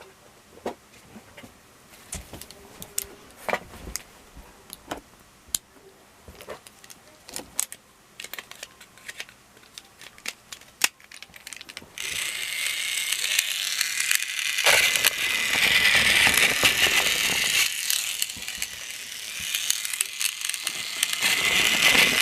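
Scattered clicks and rattles of plastic toy-train parts being handled, such as a Plarail level crossing. About halfway through, a louder continuous rustling, whirring noise full of small clicks starts and keeps going.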